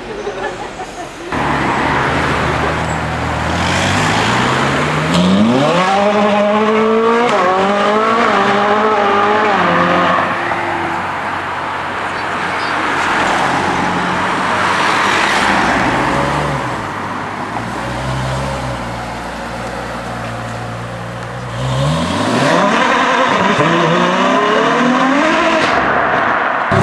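Supercar engine accelerating hard through the gears, its pitch climbing in steps with drops at each shift. It makes one loud run starting about a second in and another near the end, with steadier running between them.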